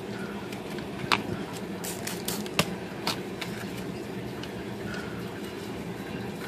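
Washing and scrubbing the enamelled body of a vintage Royal typewriter: a steady rushing noise with a few sharp taps and clicks, about one, two and a half and three seconds in.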